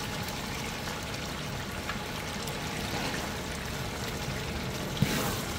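A large pot of chickpeas, tomatoes and green chillies in spiced liquid bubbling and simmering steadily on the fire, the chana pulao masala cooking down. A single short knock about five seconds in.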